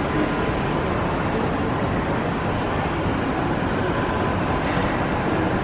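Steady rumble and hiss of a moving vehicle heard from inside, even and unbroken.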